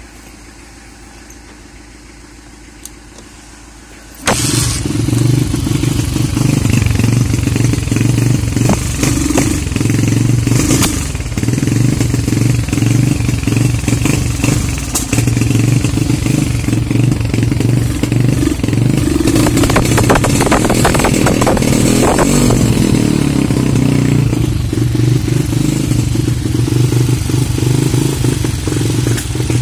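CG-type air-cooled single-cylinder four-stroke motorcycle engine starts suddenly about four seconds in, then runs unevenly, with a more ragged, clattery stretch around twenty seconds in. The engine is fresh from a full rebuild with new crankcases and is running like crap.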